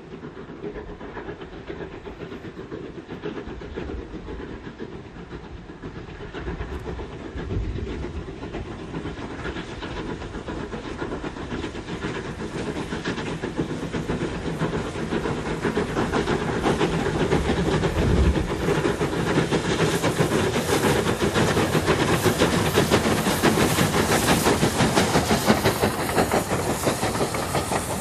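Two steam locomotives hauling a train, their exhaust beats coming in a rapid stream and growing steadily louder as the train approaches and passes, with steam hiss.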